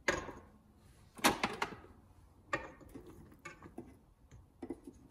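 A measuring cup knocking and tapping against a stainless steel stand-mixer bowl as a cup of flour is tipped in, a handful of sharp knocks with the loudest cluster a little over a second in.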